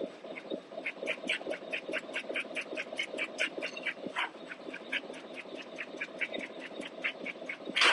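CNC turret punch press punching sheet metal in quick, even succession, about six or seven hits a second, with a louder stroke about four seconds in and another near the end.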